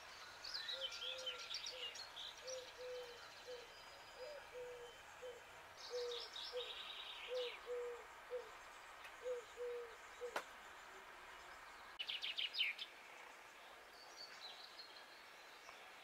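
Eurasian collared dove cooing, its low notes repeated in phrases of about three for roughly the first ten seconds. Short bursts of higher twittering from small songbirds come over it, and there is a single sharp click about ten seconds in.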